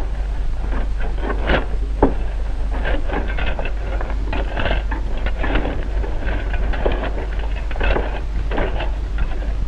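Track workers' steel tamping tools and shovels striking and digging into crushed-stone railway ballast beneath the rails, packing it under the sleepers: irregular strikes, roughly one or two a second, over a steady low hum.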